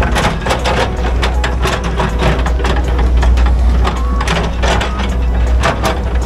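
Hydraulic excavator's diesel engine running steadily while the bucket works loose soil and stones, with repeated short scrapes and clatters throughout.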